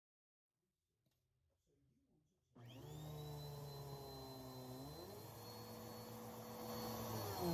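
Vacuum cleaner switched on about two and a half seconds in, its motor whining up to speed and then running steadily, its pitch shifting a couple of times, with a few faint handling clicks before it starts.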